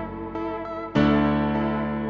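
Soft background music on a piano-like keyboard playing sustained chords. A new, louder chord comes in about a second in.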